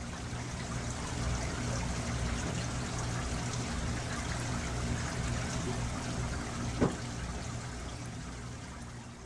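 Steady running water, like a trickling stream, over a low steady hum. It fades out near the end.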